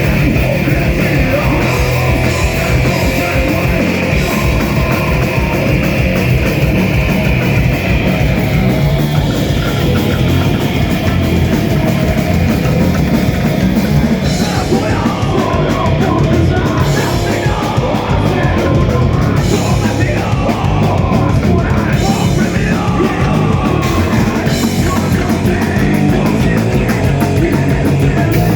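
A rock band playing loud heavy music live, with distorted guitars and drums at a steady, unbroken level.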